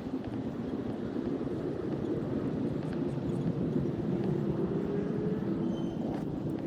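A steady, low engine rumble that swells at the start and holds, with a faint tone drifting slowly upward in pitch.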